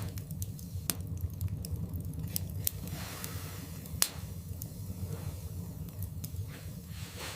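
Wood fire burning in a fireplace: a low steady rumble with scattered sharp crackles and pops, the loudest about four seconds in, and a few soft hisses.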